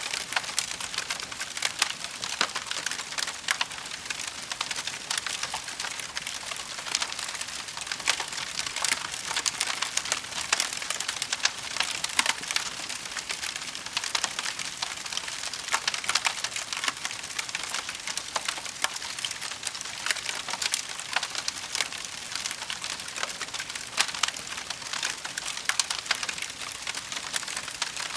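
Wood fire burning in a fireplace, crackling steadily with a dense run of small sharp pops and snaps.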